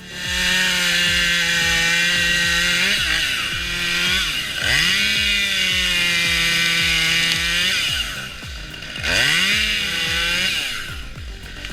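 Chainsaw engine running at high revs. Its pitch dips sharply and climbs back up about three times, with a faint music beat underneath.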